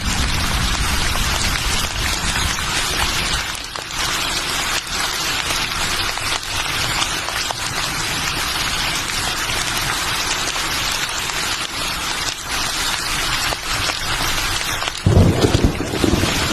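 Steady rain falling, a dense hiss full of fine drop patter. Near the end a low rumble comes in suddenly beneath it.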